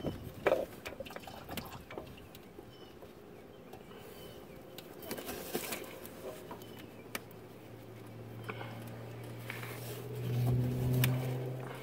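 Hands fumbling at a spin-on oil filter under an engine: scattered small clicks and knocks against metal and hoses, with clothing brushing close to the microphone. A low steady hum comes in about six seconds in and grows louder near the end.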